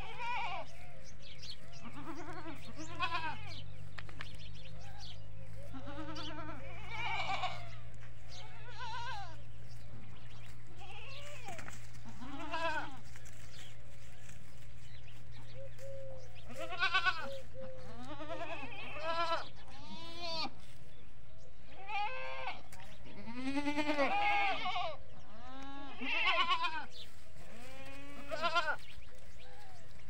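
Desi goats, adults and kids, bleating again and again, several animals calling one after another and sometimes together, over a steady low hum.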